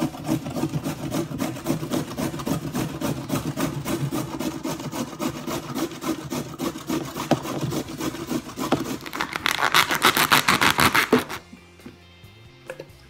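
Carrot being grated by hand on a metal box grater: quick, regular rasping strokes that grow louder near the end and stop abruptly.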